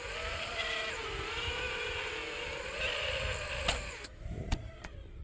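FPV quadcopter's motors whining, their pitch wavering up and down as it bucks the gusty wind while being brought in to land. Near the end a sharp knock as it comes down, the motor whine cuts off, and a few light clicks follow, over a low wind rumble on the microphone.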